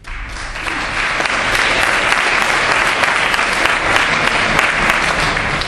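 Audience applauding: dense, steady clapping from many hands, easing off slightly near the end.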